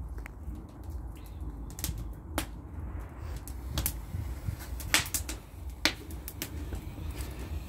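Bonfire crackling: sharp, irregular pops and snaps every second or so over a steady low rumble.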